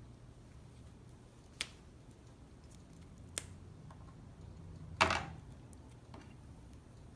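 A few sharp clicks and knocks of hand tools and heavy battery cable being handled, the loudest a short knock about five seconds in.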